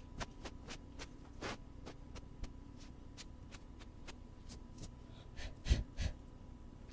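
Ear-cleaning ASMR sounds on a binaural ear microphone: irregular soft scratches and clicks, with two louder rubs near the end, over a faint steady hum.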